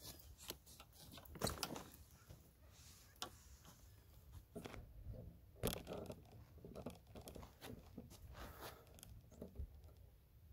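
Faint scattered rustles and clicks of a handheld camera being carried while walking on grass, with a couple of louder knocks about a second and a half in and near the middle.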